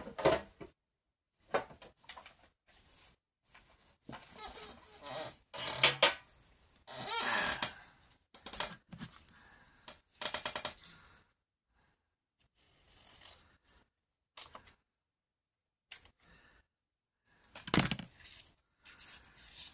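Paper handling in short bursts: rustling and crinkling of paper and die-cut paper stickers being picked up and sorted, with light clicks and taps, and a sharper knock about eighteen seconds in.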